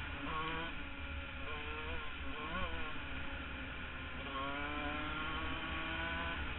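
Husqvarna CR125 two-stroke motocross engine revving up and down under the rider's throttle, with several short rises and falls in pitch in the first three seconds and a longer steady climb in pitch from about four seconds in. A low rumble runs underneath.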